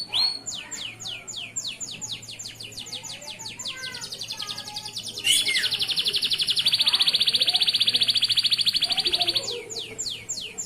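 Male canary singing: series of repeated downward-sweeping notes that speed up, then about five seconds in a loud, very fast rolling trill held for about four seconds, then back to slower sweeping notes.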